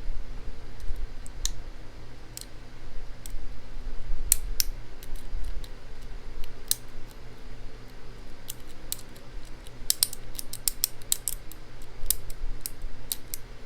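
Small, sharp metallic clicks and scrapes of a lock pick working the pin stack of a pin-tumbler lock cylinder under a tension wrench, irregular, with a quick run of clicks about ten seconds in.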